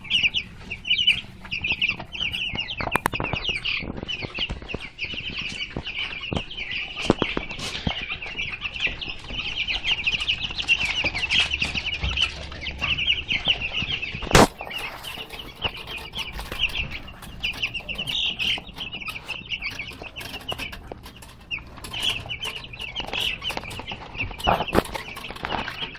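A brood of young chicks peeping continuously in many overlapping high chirps, with small taps and knocks from their pecking and scrambling, and one sharp knock about halfway through.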